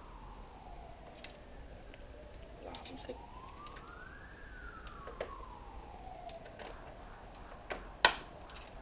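Faint wailing siren that glides slowly down, up and down again over several seconds. Over it come scattered small plastic clicks as ink cartridges with tubes are handled and pushed into an inkjet printer's cartridge slots. A sharp click about eight seconds in is the loudest sound.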